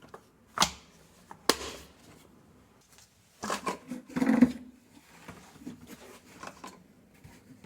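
Plastic air filter cover of a string trimmer being handled and fitted: two sharp clicks a little under a second apart, then a short clatter of knocks and rattles about four seconds in, with a few lighter taps after.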